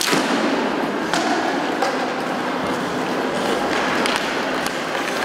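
Ice hockey skate blades scraping and carving across the ice, with a few sharp clacks of sticks on the puck over a steady rink noise.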